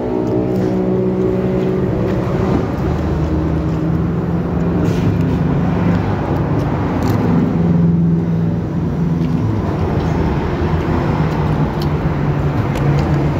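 Road traffic of cars and motorbikes going past close by: a continuous engine and tyre noise that is loudest about eight seconds in.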